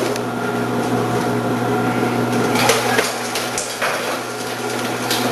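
Omcan HLC 300 vegetable processor running with a steady motor hum while cucumbers are fed down its chute and sliced by a 2 mm slicing disc. A few knocks and clatters come around three to four seconds in.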